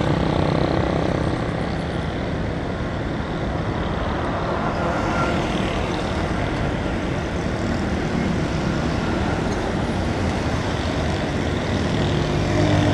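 Motorcycle riding at steady speed on a city road, its engine running under a continuous blend of road and traffic noise; a truck is alongside about halfway through.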